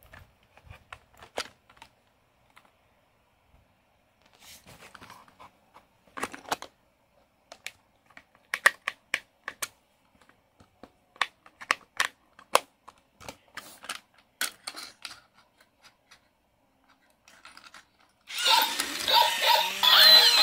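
Scattered clicks and knocks of hard plastic as a Paw Patrol dancing dog toy is handled. About 18 seconds in, the battery toy switches on and plays its loud electronic music.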